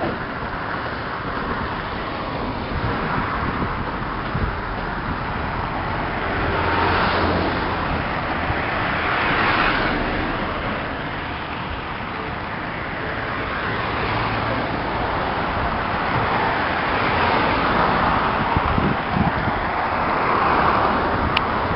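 Road traffic: cars passing one after another, the noise swelling and fading several times over a constant background rumble.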